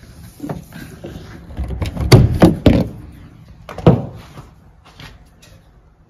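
Knocks and scrapes as a power cord's plug is worked out of a wall outlet: a cluster of sharp knocks about two to three seconds in and another single knock near four seconds.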